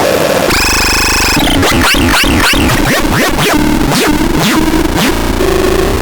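Harsh electronic synthesizer sounds: a buzzy held tone lasts about a second, then a fast run of falling pitch sweeps like zaps, settling into a steady low tone near the end.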